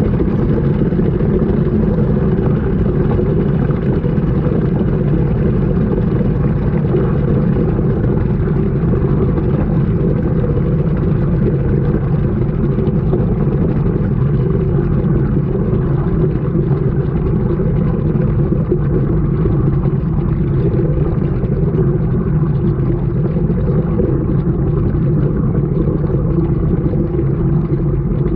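Washing machine running, heard from a camera inside the drum: a loud, steady, even rumble.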